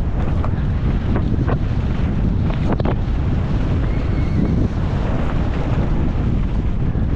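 Wind rushing over a helmet-camera microphone on a downhill mountain bike at speed, mixed with the rumble of tyres over loose dirt and stones. A few sharp knocks and clatters from the bike over rough ground, the strongest a little under three seconds in.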